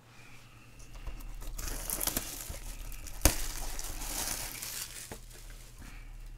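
Plastic shrink-wrap crinkling and tearing as it is pulled off a sealed hobby box of baseball cards, with one sharp snap about three seconds in.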